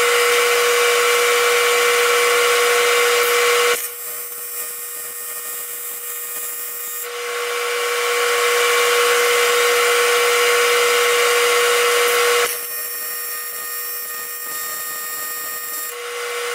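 AC TIG welding arc on aluminum from a PrimeWeld 325X, a steady high-pitched buzz with hiss. It burns for about four seconds, stops, burns again for about five seconds, stops, and starts once more near the end.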